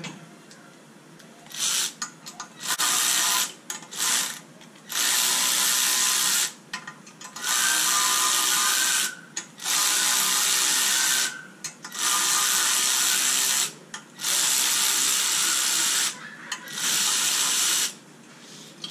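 Handheld power tool run in about nine short bursts of one to two seconds each, with brief pauses between them, worked on the valve springs of a BMW M52 cylinder head.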